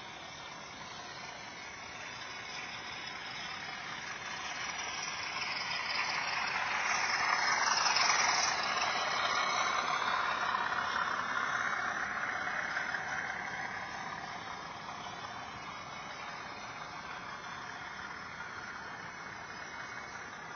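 Model freight train running past close by: the rolling rumble of its wheels on the rails and its locomotive's motor swells to a peak about eight seconds in, then fades. A second model train keeps running more faintly near the end.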